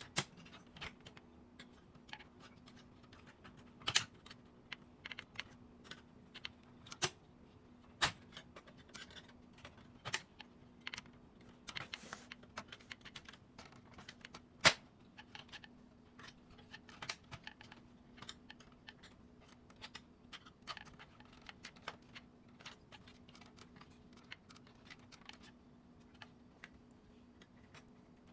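Irregular clicks and taps of a laser printer's plastic and metal parts being handled and taken apart, with a few sharper knocks, the loudest about halfway through, over a faint steady hum.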